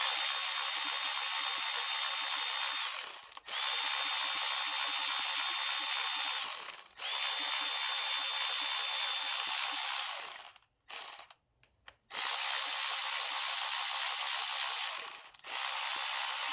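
Power driver with a T30 Torx bit whirring in repeated runs of about three seconds, with short pauses between them, as it spins out the pre-loosened bolts of a Mercedes M156 camshaft adjuster.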